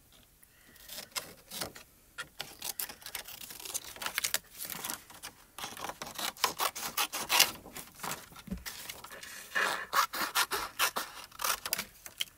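Scissors cutting through a stiff white cardstock die-cut sheet: a run of irregular short snips mixed with the sheet rustling as it is turned, starting about a second in.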